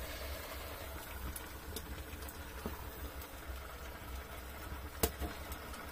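A pot of beef stew bubbling over a wood fire, just topped up with water and simmering to tenderise the meat. A few faint pops from the burning wood, one sharper about five seconds in.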